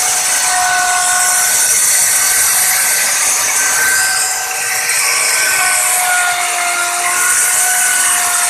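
Electric wood router running with its bit cutting a pattern into wood: a steady, loud hiss of cutting under a high motor whine whose pitch wavers slightly as the bit takes load.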